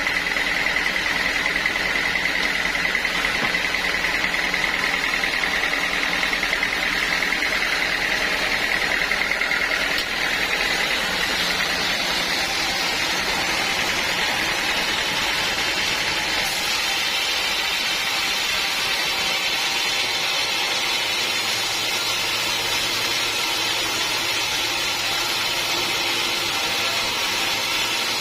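Sawmill saw running and cutting teak wood, a loud steady machine noise. A high whine carries it for the first ten seconds, then gives way to a broader, hissier sawing sound.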